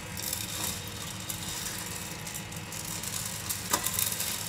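Gene Cafe drum coffee roaster running near the end of its cycle: a steady motor and fan hum with roasted robusta beans rattling in the rotating glass drum, and a sharp click about three-quarters of the way through.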